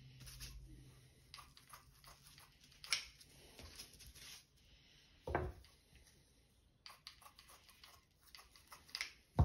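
Scissors cutting Modroc plaster-impregnated gauze bandage into small pieces: a few quiet, scattered snips and rustles of handling, the loudest about five seconds in.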